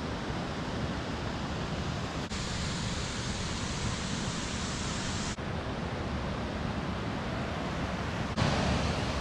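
Steady rushing of a waterfall, with a few abrupt shifts in its tone where the footage jumps.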